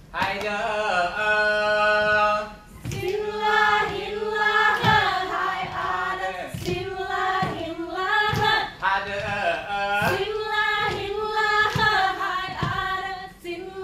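Saman dancers singing in unison: one long held note, then a rhythmic chant marked by sharp claps at short, fairly regular intervals.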